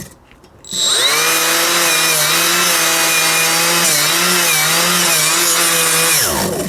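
Cordless angled die grinder with an abrasive Roloc disc, spinning up a little under a second in and running at high speed against the metal, its pitch dipping briefly a few times under load before it winds down near the end. The tool keeps cutting out, even under light pressure.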